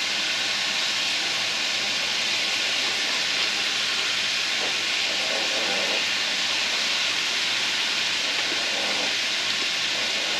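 Fish frying in hot fat: a steady, even sizzle.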